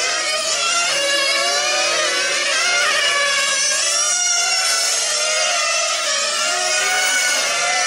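Several 1/8-scale nitro RC on-road racing cars running together, their small glow engines buzzing and rising and falling in pitch as they accelerate and lift through the corners, overlapping one another.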